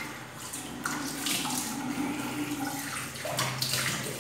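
Water from a running tap into a bathroom basin, with irregular splashes as water is scooped up in the hands and splashed onto the face.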